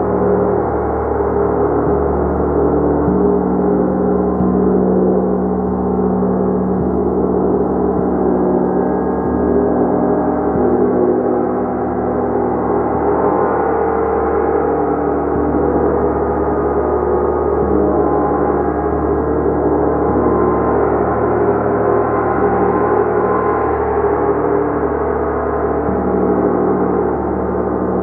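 A gong being played continuously, a dense sustained wash of many overlapping ringing tones that swells and shifts without clear separate strikes.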